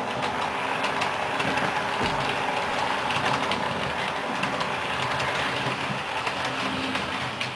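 Model train running along the layout's track: the steady whirr of its small electric motor and gears, with light clicking of the wheels over the rail joints.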